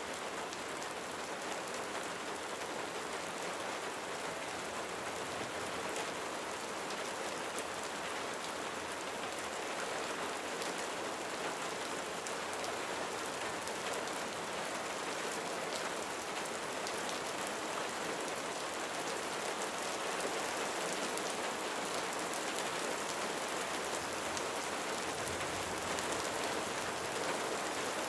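Steady rain falling on a roof: a dense, even patter with single drops ticking through it.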